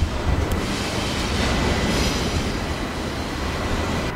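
Steady low rumble of passing vehicles.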